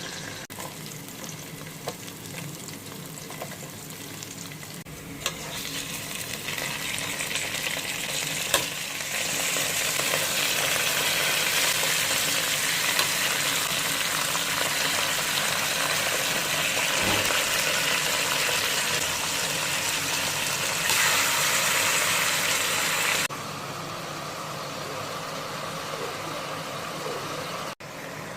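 Food sizzling and crackling as it fries in a pan, with occasional clicks of a utensil. The sizzle steps up sharply about a third of the way in and drops back suddenly with several seconds still to go.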